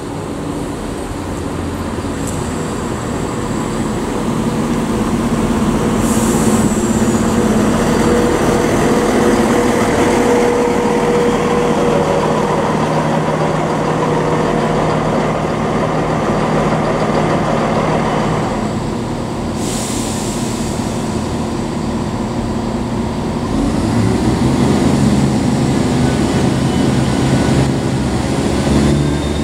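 ScotRail Class 170 Turbostar diesel multiple unit at the platform, its diesel engines running steadily and getting louder over the first several seconds, with the engine note shifting as it works. Near the end another train's running takes over.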